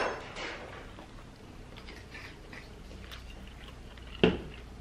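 Hot sauce bottle set down on the table with a single sharp knock near the end, after a few seconds of faint small clicks and rustles at the table.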